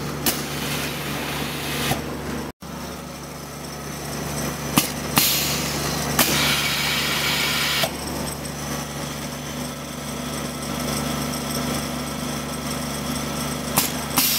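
Fabric tape label screen printing machine running with a steady motor hum, broken by sharp clacks from its moving print mechanism and spells of hissing.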